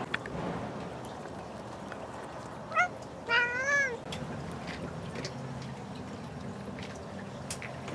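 Bengal cat meowing: a short rising chirp about three seconds in, then a longer meow that rises and falls. A few faint clicks are scattered around the calls.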